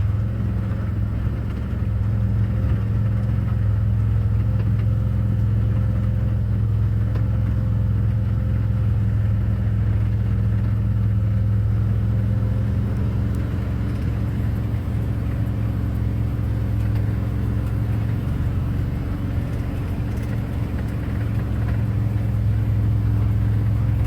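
Vehicle engine running at a steady pace with a low, even hum, heard from inside the vehicle while it drives.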